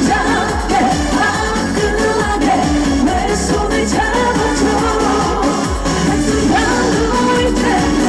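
A female trot singer singing live over an amplified backing track with a steady bass beat.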